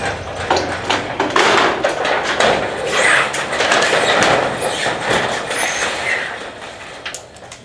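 Old corrugated metal roofing sheets scraping and clattering as they are pulled off a roof, with many sharp knocks, dying away near the end.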